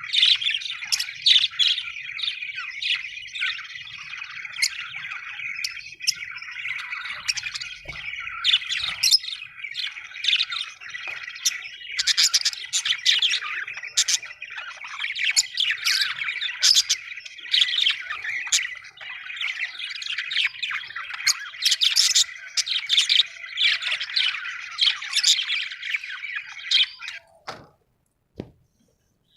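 A group of budgerigars chattering together, a dense continuous warble with many sharp chirps and squawks over one another. It cuts off abruptly near the end.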